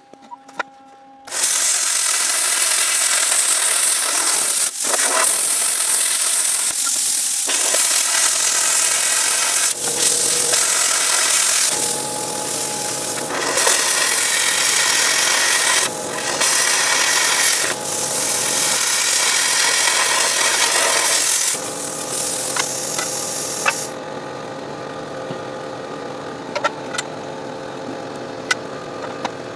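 Plasma cutter cutting notches in the ends of steel pipes: a loud, steady hiss of the arc and air that starts about a second in and dips briefly between cuts. Near the end it drops to a quieter hiss with a few sharp clicks.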